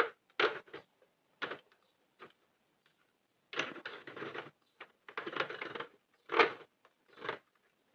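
Irregular short clicks and rustles of yarn being wrapped by hand around the plastic needles of a Sentro 48 circular knitting machine: yarn rubbing on plastic and the needles clicking, some single and some in clusters of about a second.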